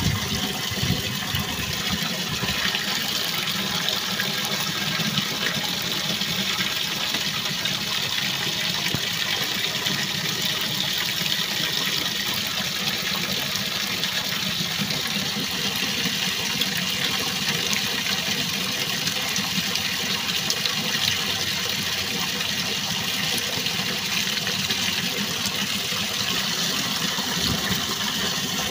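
Running water: a steady, even rush of flowing water.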